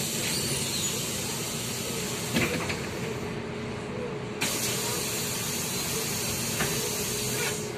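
Compressed air hissing from a MAZ-203 city bus's pneumatic system in two long releases, the second starting about four and a half seconds in, with a few light knocks.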